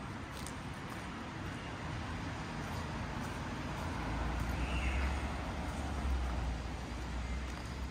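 City street ambience: road traffic passing on a nearby avenue, with a low rumble that swells about halfway through as a vehicle goes by.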